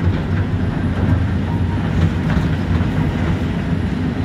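Hydraulic excavator's diesel engine running steadily under load, heard from the cab, while the bucket digs into broken quarry rock with scattered scrapes and clatters of stone.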